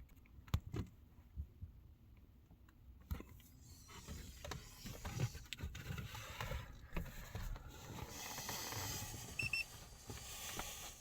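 Scattered clicks and knocks, then a stretch of rustling handling noise as equipment is set up for an Xtool scan of a Suzuki Ignis, with a short two-part electronic beep about nine and a half seconds in.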